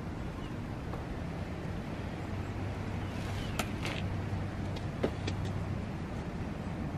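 Steady low outdoor rumble with a few light clicks and taps a little past halfway, and faint bird chirps. The impact driver is not running.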